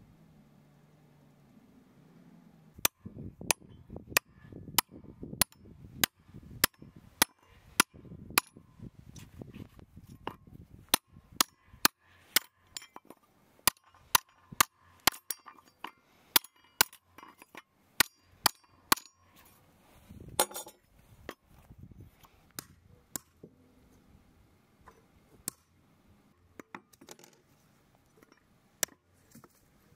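Hammer blows on nails through galvanized steel angle plates into a wooden beam: a steady run of sharp strikes, about three every two seconds, starting a few seconds in and lasting some fifteen seconds, then a short clatter and a few scattered blows.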